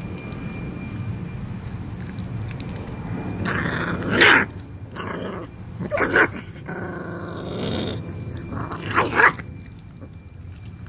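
Bulldogge puppies growling and snarling at each other over a raw chicken wing: five short snarls in the middle of the stretch, guarding the food from one another. A steady low rumble lies under the first few seconds.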